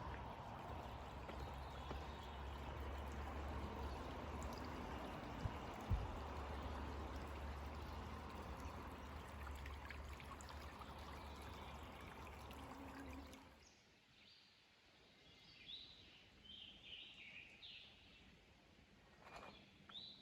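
Steady rush of running water, a stream or small falls, that cuts off about two-thirds of the way through. A bird then calls several times in short high chirps over quiet woodland background.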